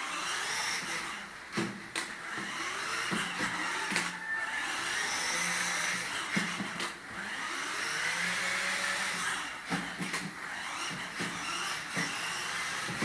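Electric motor and gearbox of a child's battery-powered ride-on toy sport bike whirring steadily as it drives, with a few short knocks along the way.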